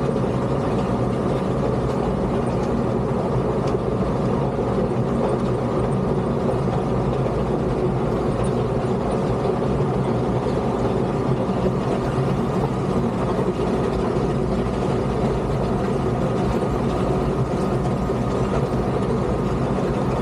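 Motor grader's diesel engine running steadily, with an even, unchanging pitch.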